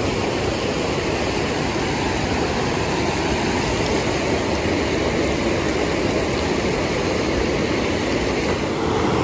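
Shallow mountain creek rushing over a rocky bed: a steady, even rush of water.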